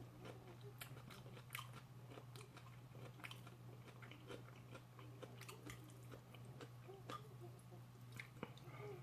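Faint, close-up chewing of a mouthful of food, with many small wet mouth clicks scattered through it, over a steady low electrical hum.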